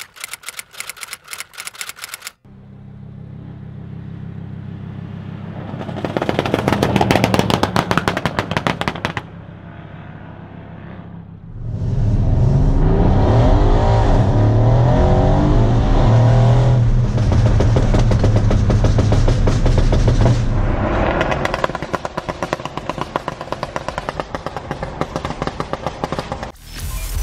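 Typewriter-style clicking for the first couple of seconds, then the twin-turbo V8 of a Mercedes-AMG C63 S fitted with downpipes and an aggressive tune. The engine runs with loud runs of rapid exhaust crackling and popping, and in the middle it pulls hard under acceleration, rising in pitch. More crackling follows near the end.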